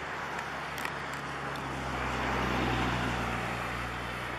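Motor vehicle engine running with a low hum that swells about halfway through and then eases off.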